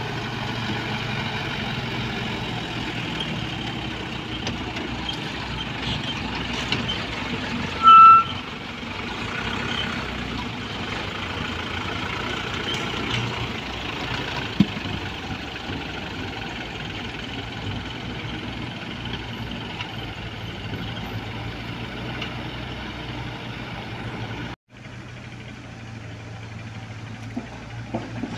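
Diesel engines of Komatsu mini excavators and Mitsubishi dump trucks running steadily, with one short, loud high beep about eight seconds in. The sound drops out for an instant near the end and goes on quieter.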